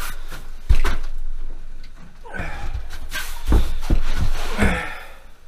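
A person moving about in a small shack while handling a freshly caught walleye and jig: a sharp knock just under a second in, rustling, and a few more bumps near the end.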